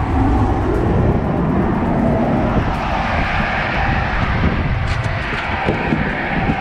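Wind buffeting the microphone: a loud, steady, fluctuating low rumble with no distinct pitch.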